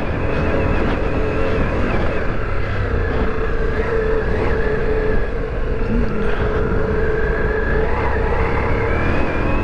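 Ducati Multistrada V4 Rally's V4 engine running at a steady, low engine speed in first gear as the motorcycle climbs a rough trail, its pitch nearly constant with small wavers.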